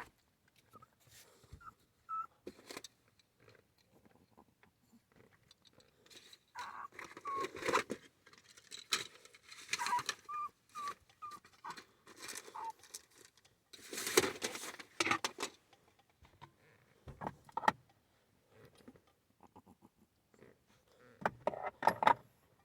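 A puppy sniffing and snuffling in irregular short bursts, the loudest runs about 7 and 14 seconds in, with a few brief high squeaks among them.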